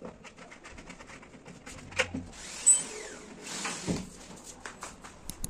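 Wooden sliding wardrobe doors being handled and adjusted: scattered clicks and knocks, a sharp knock about two seconds in, then a stretch of rushing noise with a loud click near its start as a door runs along its aluminium track.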